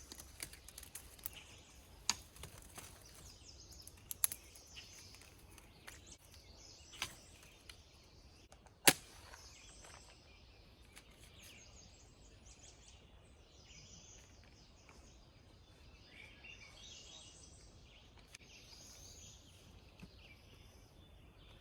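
Faint outdoor quiet with birds chirping softly, broken by a handful of sharp clicks or knocks in the first half, the loudest about nine seconds in.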